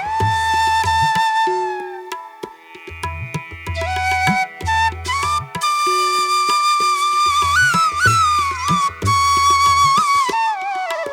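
Background music: a flute melody with sliding notes over a low, repeating drum beat that drops out briefly about two seconds in.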